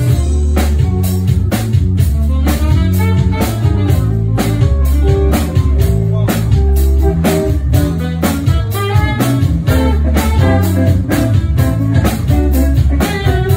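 Live band music: a saxophone playing over drums and bass with a steady beat.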